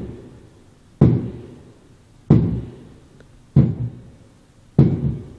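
Loud banging: four heavy thuds evenly spaced about a second and a quarter apart, each dying away briefly.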